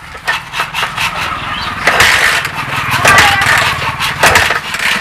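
TVS XL 100 BS6 moped being kick-started: the kick mechanism and single-cylinder engine turn over but the engine does not catch. It is a no-start fault, and the dry spark plug suggests that fuel may not be reaching the cylinder.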